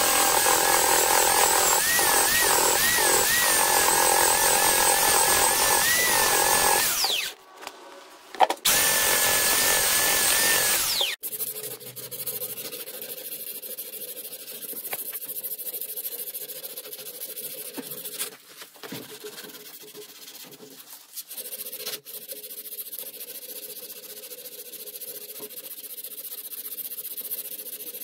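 A handheld belt sander runs on wood with a wavering whine, in two runs that each end with the motor winding down, at about 7 and 11 seconds. Then comes quieter, scratchy hand sanding of an oak handle with a strip of abrasive drawn back and forth across it.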